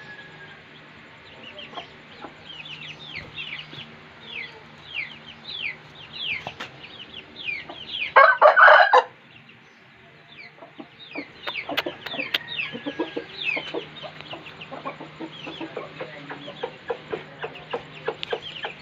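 Rapid high, short chirps run throughout, with one loud rooster call lasting about a second around eight seconds in. From about eleven seconds on come scattered sharp clicks and knocks.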